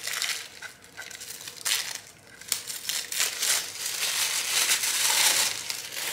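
Thin plastic wrapping crinkling and rustling as a boxed perfume bottle is pulled out of it. The sound comes in scratchy bursts that grow denser and louder over the last few seconds, then stop.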